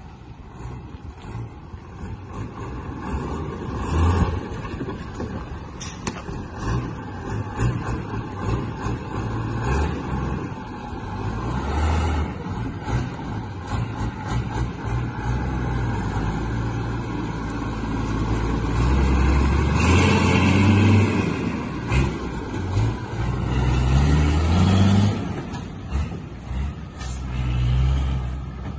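Mitsubishi Fuso Forward truck's 6D17 inline-six diesel engine running, its pitch rising and falling as it is revved several times, mostly in the second half.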